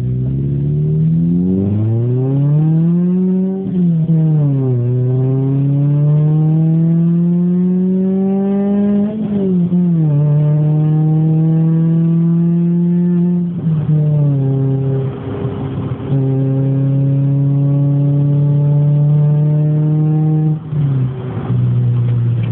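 Car engine running through a newly fitted exhaust manifold and exhaust, pulling up through the gears. The engine note rises and drops sharply at two gear changes, then holds a steadier note with a couple of short dips.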